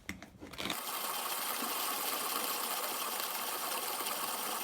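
Vintage Zassenhaus manual conical burr coffee grinder grinding coffee beans on its finest setting: a steady, even whirr that starts sharply about a second in.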